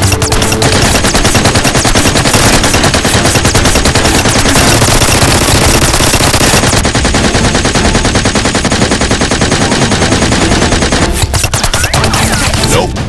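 Sustained rapid automatic gunfire, many shots fired in quick succession, going on for about ten seconds before tapering off near the end.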